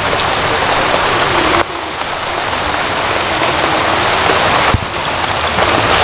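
Steady, heavy rain, a dense even hiss that dips abruptly twice.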